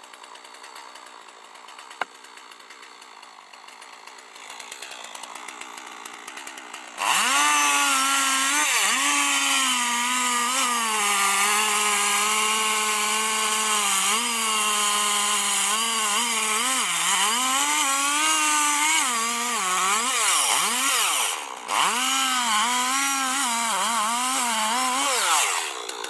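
Two-stroke chainsaw cutting into a thick tree trunk: it comes in loud at full throttle about seven seconds in, its pitch dipping and recovering again and again as the chain loads in the wood. It lets off briefly about three quarters of the way through, then cuts on and eases off near the end.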